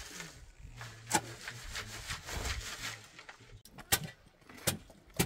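Hand tools at work on the build site: a stretch of rough rasping strokes, then three sharp knocks near the end.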